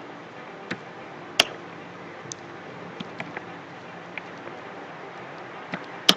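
Irregular clicks of a computer keyboard and mouse over a steady background hiss, with two louder clicks about a second and a half in and near the end.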